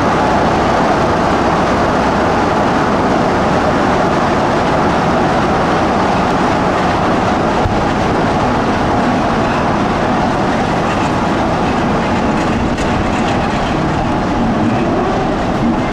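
BR 'Peak' class diesel-electric locomotive pulling away, its Sulzer twelve-cylinder diesel engine running loud and steady.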